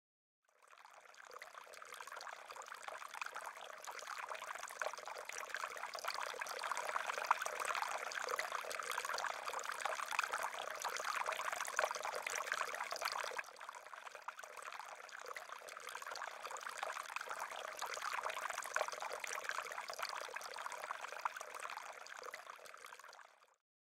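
Water trickling and splashing from a garden fountain, a steady watery wash. It fades in at the start, drops suddenly in level about halfway through, and fades out near the end.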